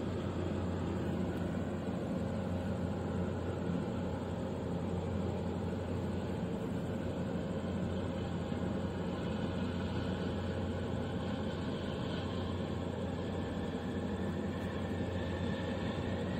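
Steady low engine drone of a large container ship passing close by.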